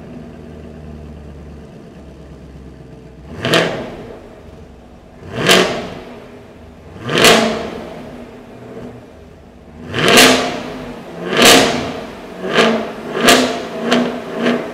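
Chevrolet Camaro's naturally aspirated 6.2-litre V8 idling with a low hum, then revved in eight quick throttle blips, each rising and falling within about a second, the last few coming closer together, in an underground garage.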